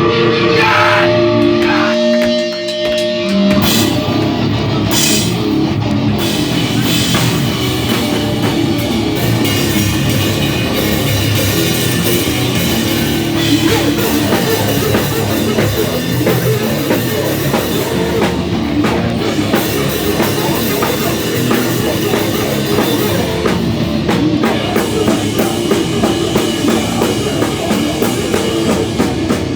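Live rock band starting a song: a few held guitar notes, then the drum kit and the full band come in together about three and a half seconds in and play on loud.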